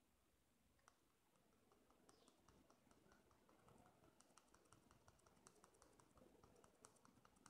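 Near silence, with a run of faint, quick fingertip taps on a phone touchscreen, several a second and unevenly spaced, mostly from about two seconds in.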